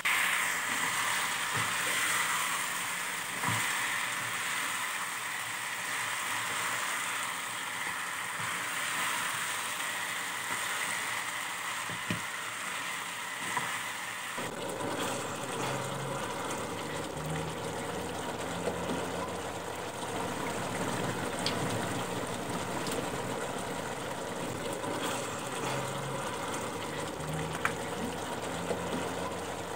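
Chicken pieces in spicy masala sizzling and frying in a pan. About halfway through the sound changes to a duller, lower bubbling as the chicken simmers in its gravy.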